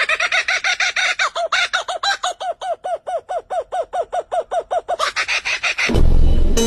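A bird calling in a rapid series of short, repeated notes, about five a second, each rising and falling in pitch. Near the end the calls stop, and a louder, deeper sound cuts in.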